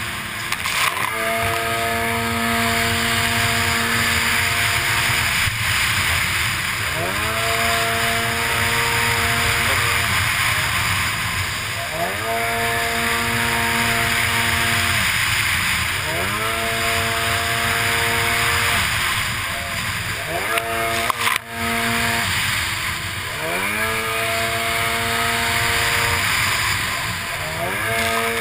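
Racing jet ski's engine heard onboard, revving up, holding and dropping back about every four seconds as the throttle is opened and eased. Under it is a steady rush of water spray, with a brief drop about two-thirds of the way through.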